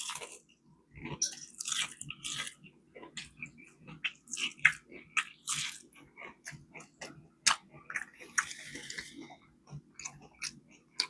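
A person chewing and biting fried chicken close to the microphone: irregular mouth clicks, smacks and short crunchy bursts.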